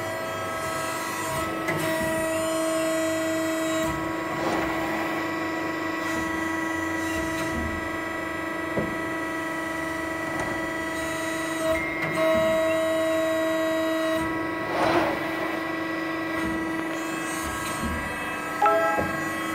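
Steady machine hum of several held tones from a running CNC press brake's servo-hydraulic system. A higher whine comes in for about two seconds twice, a couple of seconds in and about halfway through, with a few light clicks between.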